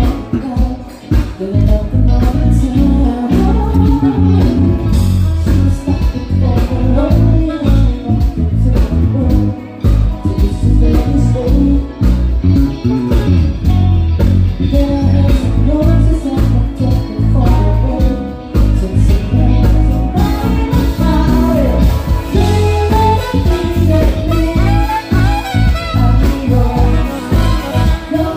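Live band music: a heavy bass line and guitar under a wavering lead melody, played continuously.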